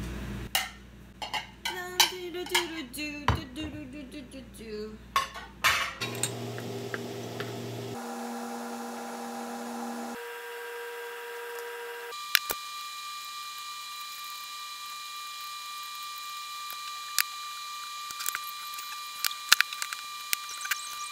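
Clatter and clicks of chopsticks and plates as pad thai is portioned out and covered with plastic wrap, busiest in the first few seconds. The audio is fast-forwarded, so a steady background hum jumps up in pitch in steps about every two seconds, ending as a high steady whine with scattered clicks.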